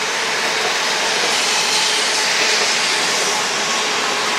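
Shinkansen bullet train running at the platform, a steady rushing hiss of air and wheels that swells a little about halfway through.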